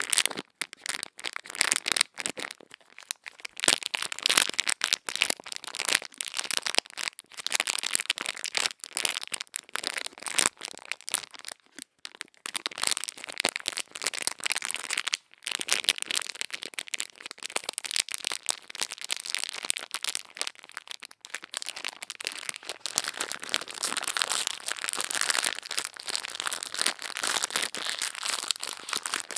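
Crisp, close-up ASMR ear-cleaning sounds: dense crackling and scratching, as of tools worked against a microphone's ear, with a couple of brief pauses midway.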